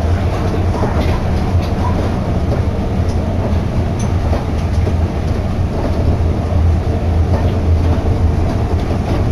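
Tokyo Monorail train running between stations, heard from inside the car: a steady, loud low rumble with a faint hum above it.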